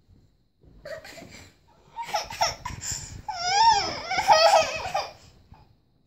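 A toddler laughing, with high, wavering squeals, loudest between about three and five seconds in.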